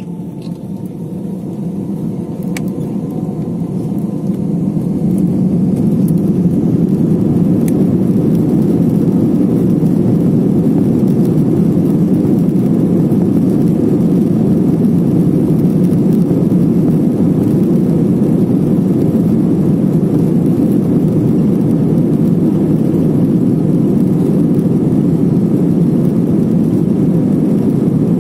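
Airliner jet engines heard from inside the cabin during the takeoff roll: a low, steady noise that grows louder over the first five seconds as the engines spool up to takeoff power, then holds steady.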